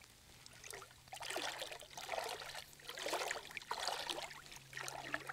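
Shallow surf water sloshing and swishing in repeated surges, about one a second.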